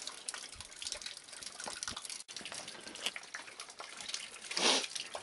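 Rustling and clicking handling noise from a body-worn action camera being moved, with a short louder rush of noise near the end.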